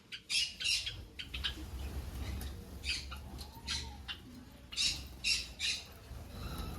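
Finches calling: short, high calls at irregular intervals, often two in quick succession, over a steady low hum.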